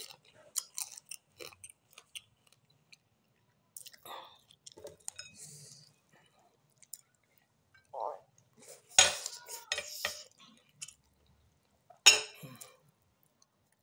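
A person eating rice and crab by hand: chewing and lip sounds with scattered light clicks and taps of fingers and crab shell on a plate, and a few louder mouth noises, the biggest about nine seconds in and again near the end.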